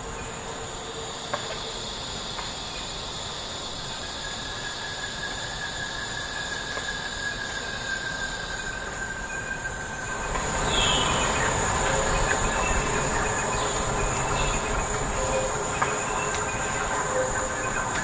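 Forest ambience: a steady high insect drone with thin held tones, swelling into a louder, fuller rushing noise about ten seconds in.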